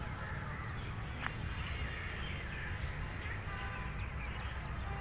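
Steady low rumble with faint bird calls over it.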